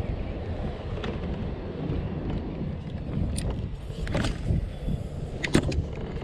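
Wind rumbling on the microphone over open water, with a few short sharp clicks as a spinning rod and reel are worked by hand.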